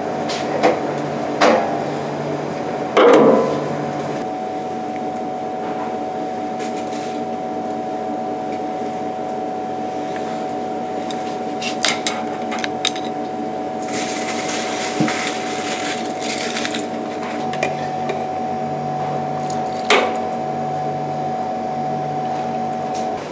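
A steady mechanical hum of kitchen equipment with a few sharp knocks and clinks of pots and bowls, and a hiss lasting about three seconds around the middle.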